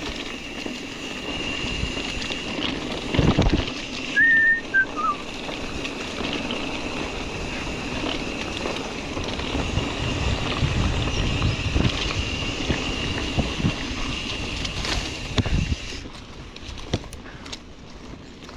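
Mountain bike ridden over a rough trail, with wind and bumps thudding on the microphone and a steady high whine that stops near the end. A short chirp that falls in pitch comes about four seconds in.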